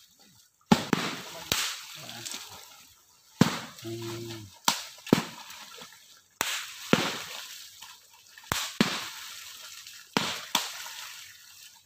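Long poles slapping down hard on the surface of a shallow, weed-choked pond: sharp smacks, each followed by a brief splash, coming every second or two and often in pairs. This is the traditional way of beating the water to drive fish forward into a net. One of the men gives a short call about four seconds in.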